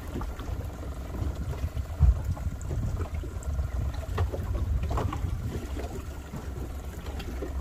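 Low wind rumble on the microphone aboard a small boat, with scattered light knocks, one louder about two seconds in.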